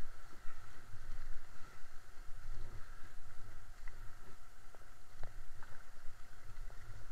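Fast, rain-swollen river water rushing past an inflatable canoe as it is paddled downstream, with a steady low rumble underneath. A few light paddle knocks and splashes come through in the middle.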